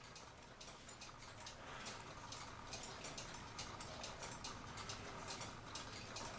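Faint, quick, light ticking of a mechanical clock, a few ticks a second.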